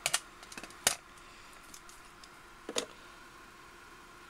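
Sharp plastic clicks of cassette tapes and their cases being handled at an open cassette deck's door, a tape taken out and another one readied. There are four clicks, the loudest about a second in, over a faint steady hum.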